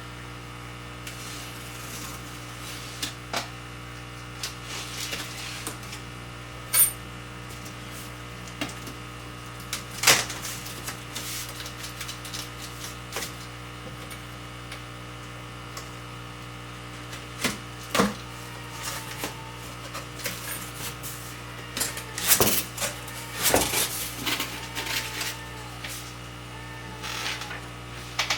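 A shipping box of fish being opened and unpacked by hand: scattered knocks, clicks, scrapes and rustles of the box and its packing, busiest near the end, over a steady low hum.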